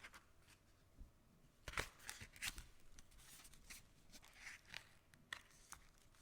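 Faint, scattered rustles and small clicks of something being handled, with no steady hum or tone.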